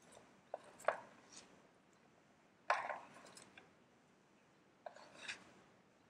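Dry leaves, twigs and bark rustling and clicking as a hand rummages in a round container and lays pieces down on a towel, in three short bursts, the loudest near the middle.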